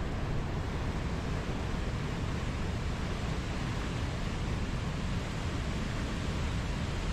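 Steady wind and water noise with no distinct events, heaviest in the low end.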